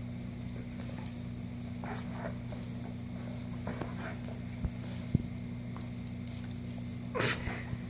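A dog chewing and mouthing a plush toy, with faint scattered small clicks and scratchy sounds over a steady low hum. A brief, louder sound comes near the end.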